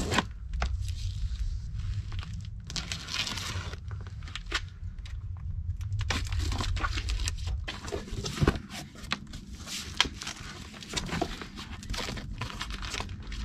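Cardboard shipping box being torn open by hand: packing tape ripped off and flaps pulled back, with irregular tearing, crinkling and scraping of cardboard and scattered sharp knocks, over a low rumble.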